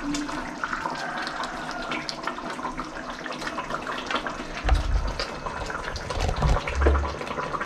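Fish curry bubbling and simmering in a pot as pieces of fish are dropped into it: a steady watery hiss with many small pops, and two dull low thumps about five and seven seconds in.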